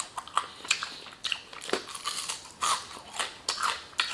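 Close-up eating of crispy fried chicken: biting and chewing with a quick run of crunches and mouth clicks, several a second.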